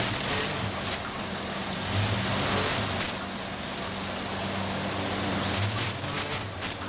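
Vertical form-fill-seal packaging machines running together in a factory hall: a steady hum under a dense mechanical hiss, with a few short surges of hissing.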